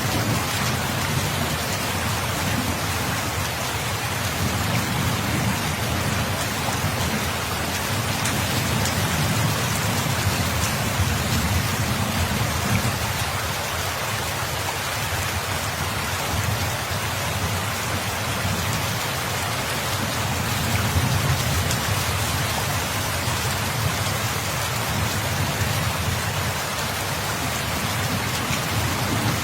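Steady rain falling as an even hiss, with a low rumble underneath that swells and fades a few times.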